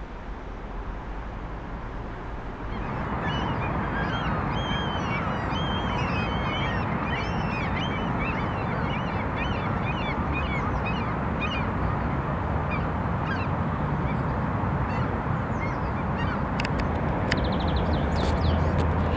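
A flock of waterbirds calling, many short overlapping calls that start about three seconds in, over a steady low rumble of wind or distant traffic. A few sharp clicks come near the end.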